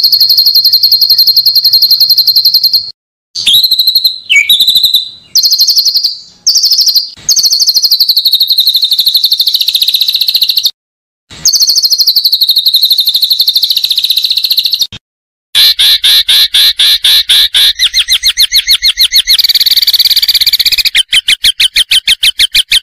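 Songbird singing loud, very fast high-pitched trills, cut off abruptly a few times by short silences. In the second half it turns to a run of separate rapid repeated notes that quicken near the end.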